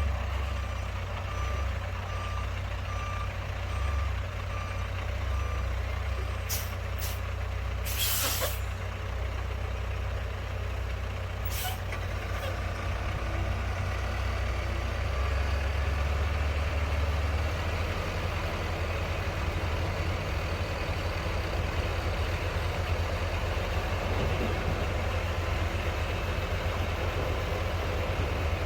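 Skid steer engine running steadily while working, its backup alarm beeping in a regular pattern for the first several seconds. A few short hisses come about a third of the way in.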